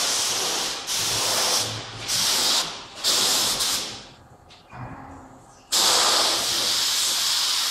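Gravity-feed spray gun hissing as it sprays varnish onto a wooden boat's deck, in bursts as the trigger is pulled and released: a run of short passes, a lull of about a second and a half, then one long pass near the end.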